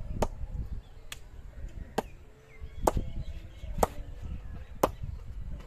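Leather cricket ball bounced repeatedly on the face of a TS leather-ball cricket bat: six sharp knocks about a second apart, the second one faint and the later ones loudest. It is a ping test of the bat, its strong knock and high rebound the sign of a bat with good punch.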